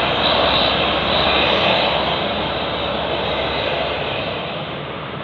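A bus passing close by, its engine and tyres making a dense rushing noise that slowly fades as it moves away.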